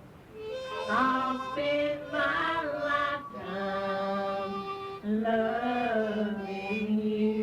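A lone voice singing a slow song in long held notes that bend gently in pitch, heard from an old home cassette recording.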